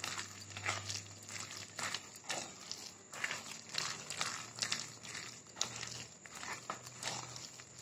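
A hand mixing and squeezing a thick, crumbly batter of paneer, bread crumbs and besan in a plastic bowl, making irregular squishing, crackling strokes.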